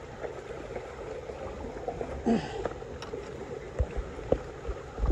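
Small waves lapping and washing against a rocky shore, a steady watery wash. A short sound with a falling pitch comes about two seconds in, and a few low knocks come near the end.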